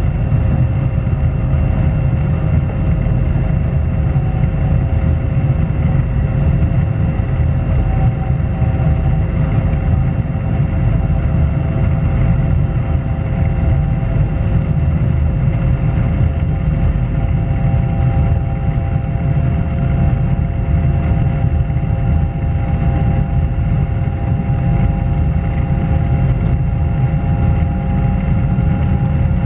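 Pesa Dart (ED161) electric multiple unit running at steady speed, heard from inside a passenger car. There is a loud, even rumble of wheels on track, and over it the steady whine of the traction inverters and motors in several held tones. One tone grows stronger in the second half.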